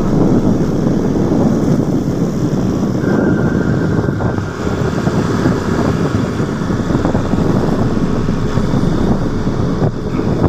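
Wind buffeting the microphone over a loud, steady, low rumble of a moving vehicle. A faint thin tone sounds briefly about three seconds in.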